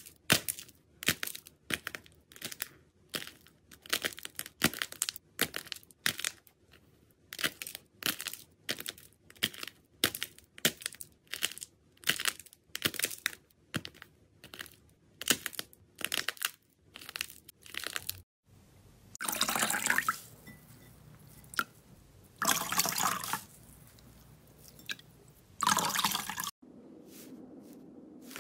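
Slime being squeezed and poked by hand, a quick run of short crackling squelches about two a second. Then three longer squishes, each about a second long.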